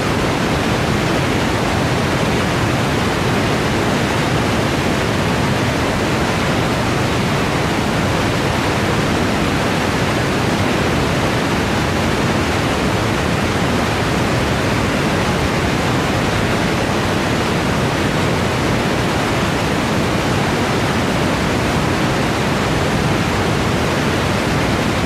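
Victoria Falls thundering close by: a loud, steady, unbroken wash of falling water.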